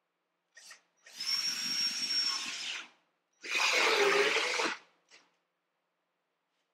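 Cordless drill running in two bursts, about two and one and a half seconds long, as its bit goes down into a wooden board. In the second burst the pitch dips and comes back up as the bit bites. A brief blip comes just before the first burst and just after the second.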